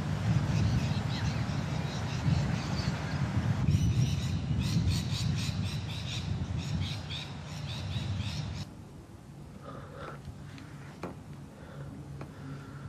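Birds chirping rapidly over a low, steady outdoor rumble, starting about four seconds in; the rumble and chirping cut off abruptly near two-thirds of the way through, leaving a quieter room background with a few faint clicks.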